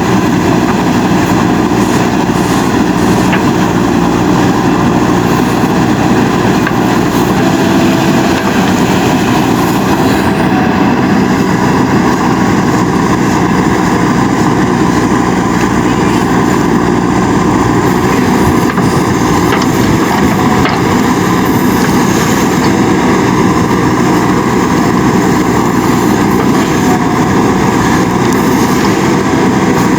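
Diesel engine of a JCB 3DX Super backhoe loader running steadily.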